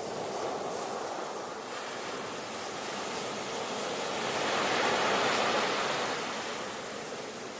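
Ocean surf: a steady wash of waves that swells as a wave breaks and runs in about halfway through, then eases off.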